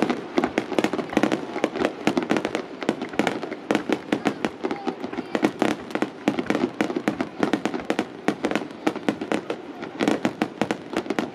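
Fireworks display going off in a rapid barrage: a dense run of sharp bangs and cracks, several a second, without a break.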